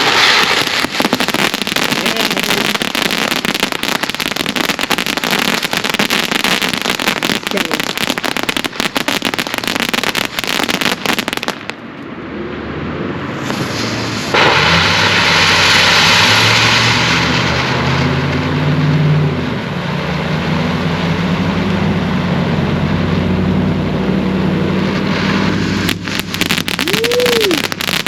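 TNT Jam Box consumer firework fountain going off. A loud, dense crackle runs for about twelve seconds, then dips briefly and gives way to a steadier hissing spray.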